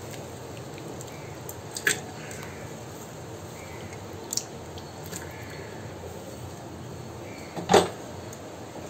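Chopped banana stem being tipped into an aluminium pressure cooker over moong dal: a few light clicks and one sharper knock about three-quarters of the way through, over a steady background hiss.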